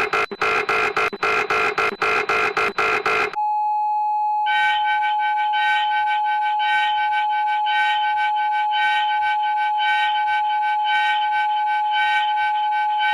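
Synthesized emergency alert tones. A fast pulsing multi-pitch tone stops about three seconds in and gives way to one steady beep tone, joined about a second later by a higher tone that pulses in a rhythmic pattern over it.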